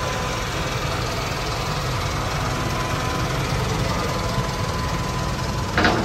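Mitsubishi Fuso Canter truck's diesel engine idling with a steady, fast-pulsing rumble and a thin steady whine above it. A single short sharp knock comes just before the end.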